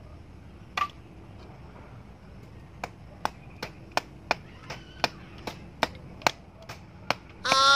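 Light, sharp chops of a hand-held blade biting into firewood, a single stroke about a second in, then a quick run of about three strokes a second. A woman's loud, high-pitched cry breaks in right at the end.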